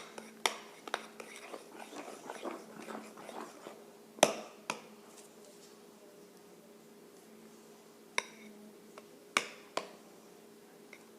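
Spoon scraping and knocking against a mixing bowl while stirring a thick slime mixture, with sharp clinks about four seconds in and again a few times near the end.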